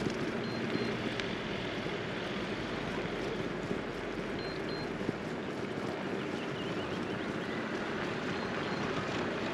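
Steady outdoor ambience: an even wash of noise with a faint low hum underneath, and a pair of short high chirps about half a second in and again about four and a half seconds in.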